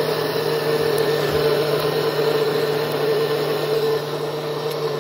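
Electric kitchen blender running steadily: a constant motor hum under an even whirring rush.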